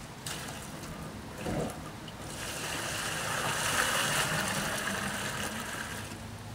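Hot strike water pouring from a stainless steel brew kettle into a plastic cooler mash tun. The pour builds about two seconds in, after a soft thump, and eases off near the end.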